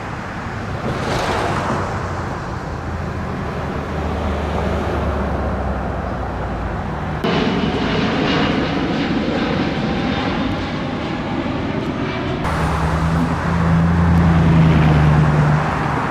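Steady outdoor engine noise from passing vehicles or aircraft, with a low engine hum that swells louder near the end.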